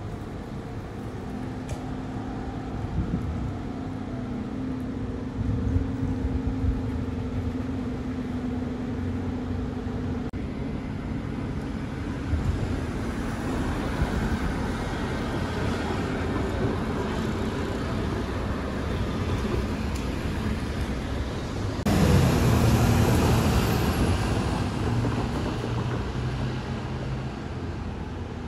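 City street traffic: buses and cars running, with engine noise throughout. It gets abruptly louder about two-thirds of the way through, where a nearby engine is loudest.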